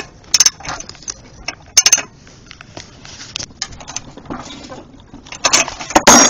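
Socket wrench tightening the cylinder head bolts on a single-cylinder engine: sharp metal clicks and clinks, with a louder clatter near the end.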